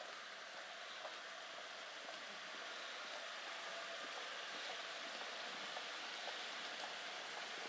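Steady night-street ambience: an even hiss of slow-moving cars on the stone street, growing a little louder about two seconds in, with faint footsteps on the paving about twice a second.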